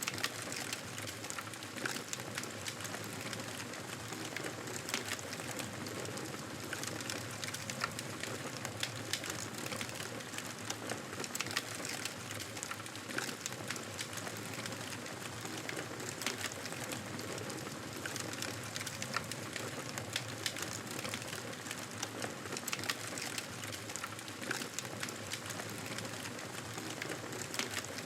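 Wood fire burning, a steady hiss with frequent sharp crackles and pops.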